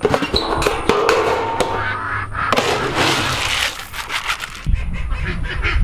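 A galvanized metal trash-can lid clanking as it is lifted off, then a plastic scoop digging into pelleted animal feed, the pellets rattling and pouring in a dense hiss.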